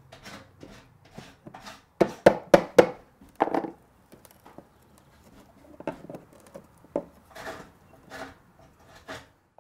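Wooden knocks and cracks as a chisel and screwdriver pry the parting bead and weight-pocket pieces out of a sash window frame: a quick run of four sharp knocks about two seconds in, then scattered lighter taps and scrapes.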